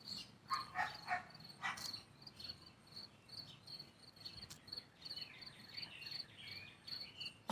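A cricket chirping steadily in short, high pulses, about two chirps a second.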